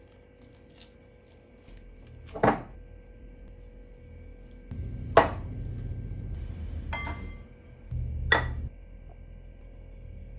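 Kitchen utensils and dishware clinking: four sharp clinks a second or two apart.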